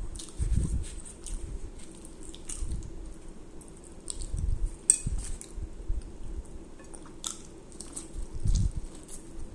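Close-up eating sounds: chewing and wet mouth noises, with sharp clicks of a metal spoon against the plate and teeth. Near the end come heavier bites into a buttered corn on the cob.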